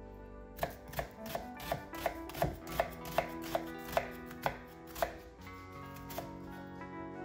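Kitchen knife slicing a halved red onion against a wooden cutting board: about a dozen sharp knocks at roughly three a second, stopping about five seconds in, then one more cut near the end. Soft background music runs underneath.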